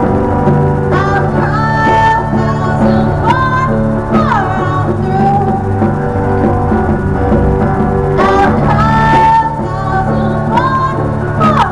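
Live band music: an electric guitar played with a singer's voice over it, with hand-drum strokes, at steady volume.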